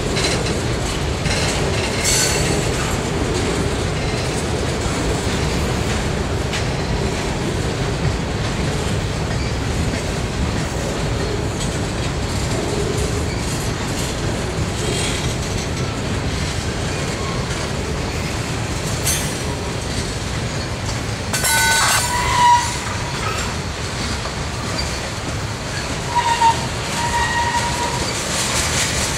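Canadian Pacific freight train's boxcars and tank cars rolling past: a steady rumble of steel wheels on rail with clacks over the joints. Brief high-pitched wheel squeals break through about two-thirds of the way in and again near the end.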